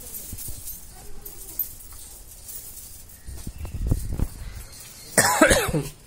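A short, loud cough-like vocal burst with a falling pitch, lasting about half a second, near the end, after a low rumble about three and a half seconds in.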